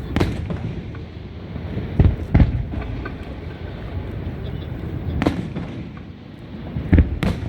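Aerial fireworks bursting: about six deep booms at uneven intervals, two of them in quick pairs, over a steady background rumble.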